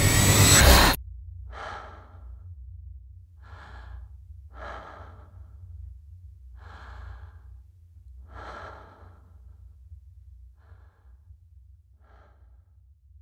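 A loud, dense sound stops suddenly about a second in. It is followed by a person breathing in slow, separate breaths, about seven of them, the last two fainter, over a steady low hum.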